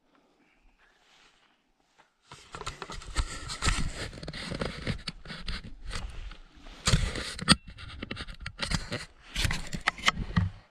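Footsteps crunching and scraping on hard, packed snow. They start about two seconds in, after near silence, and go on irregularly with several louder crunches.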